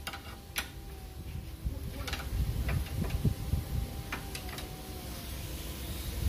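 Scattered metallic clicks and knocks, about six spread a second or so apart, from a wrench and the front lower control arm of a Hyundai Elantra being worked by hand, over a faint steady hum.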